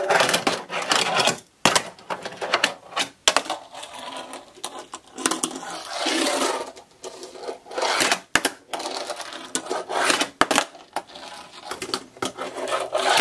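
Tech Deck fingerboard rolling and clacking on hollow plastic skatepark ramps during tricks: stretches of wheel-rolling noise broken by many sharp clacks as the board's wheels and deck hit the plastic.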